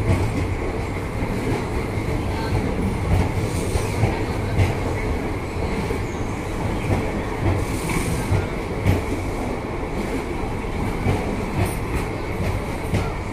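Indian Railways passenger coaches of a departing train rolling past: a steady rumble with the wheels clattering over the rail joints, and a thin steady high squeal from the wheels.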